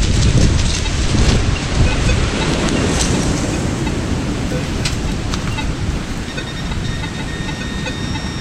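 Wind buffeting the microphone in a low, rumbling rush, with a few sharp clicks and scrapes of digging in the first three seconds. From about six seconds in, a steady high electronic tone sounds and holds.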